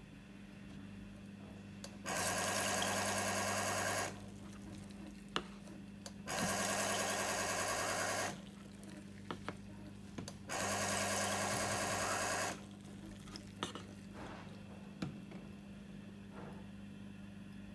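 Single-head benchtop liquid filling machine running three dispensing cycles, each a steady mechanical run of about two seconds with a fast even pulsing, about two seconds apart. Short clicks and knocks fall between cycles as the bottle under the nozzle is handled, over a steady low hum.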